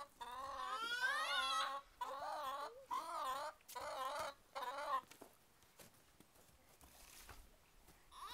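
Domestic chicken giving a series of drawn-out, wavering calls. One call rises in pitch about a second in. The calls stop about five seconds in.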